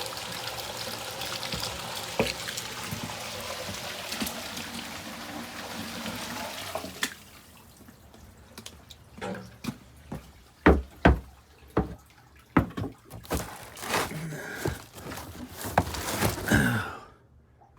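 Water rushing and gurgling in a sump pump well while the pump runs, cutting off suddenly about seven seconds in. Scattered knocks and drips follow.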